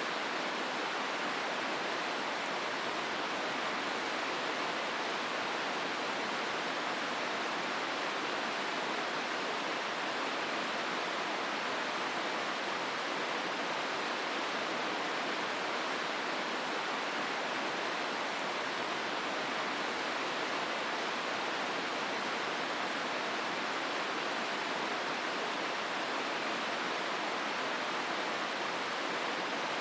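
Steady rush of the Hozu River's water flowing through the gorge: an even, unbroken hiss with no changes.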